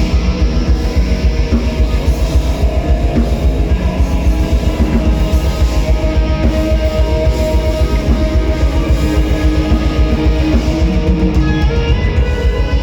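Heavy metal band playing live: electric guitars over a drum kit, with a fast, even pulse in the low end.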